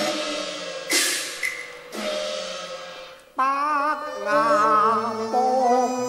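Traditional Chinese instrumental accompaniment to a Cantonese opera song, playing an interlude between sung lines: sustained melody with two loud crashes about a second apart, then after a brief dip a new melody with a strongly wavering pitch.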